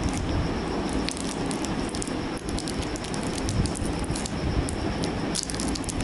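Scattered small crackles and rustles from hands handling a crumpled paper wrapper, over a steady background hiss.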